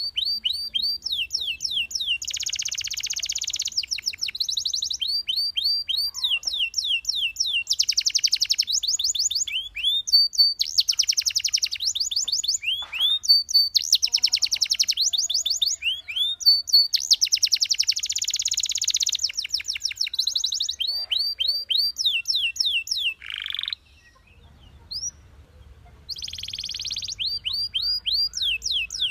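Canary singing: fast trills of repeated rising chirps alternating with dense rolling phrases, high-pitched. The song breaks off for about two seconds near the end, then starts again.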